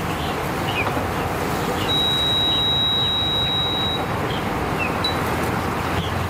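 A steady high electronic beep held for about two seconds, then one short beep, from the boat's Suzuki 250 outboard warning buzzer as the key is switched on before starting.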